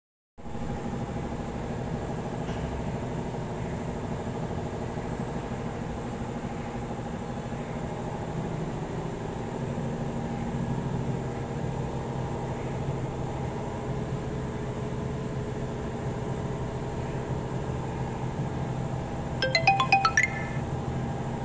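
Background music: a steady, sustained drone of held tones, with a short run of bright chiming notes near the end.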